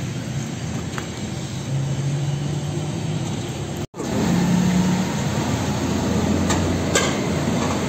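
Steady low rumble of running engines, like street traffic, with a few faint clicks; the sound drops out completely for a moment about four seconds in.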